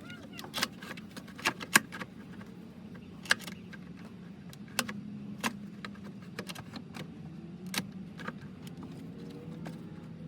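Irregular sharp metallic clicks and clinks of hand tools and parts being handled in a truck's engine bay, over a low steady hum.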